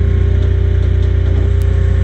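JCB 150T compact track loader's diesel engine running steadily with an even, low throb.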